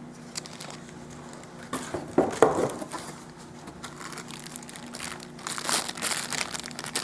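Packaging crinkling and rustling as an unboxed camcorder accessory is handled, in a short flurry about two seconds in and a longer stretch near the end.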